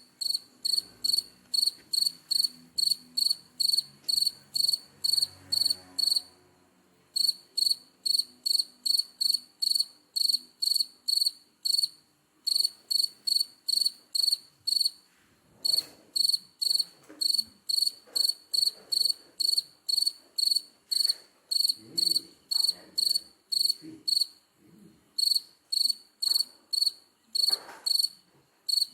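Cricket chirping: a steady run of short, high-pitched chirps at about three a second, with a few brief pauses.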